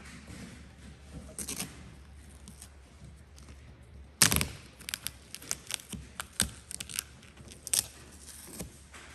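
Handling noises: a sharp knock about four seconds in, then a string of small clicks and taps with a couple of short rasps, over a steady low hum.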